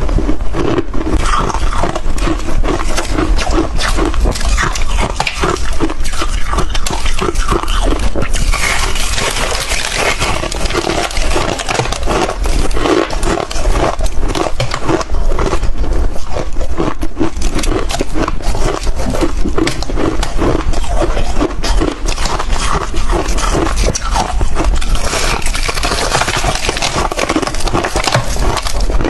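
Close-miked crunching and chewing of hard chunks of freezer frost: a dense, continuous crackle of bites and grinding.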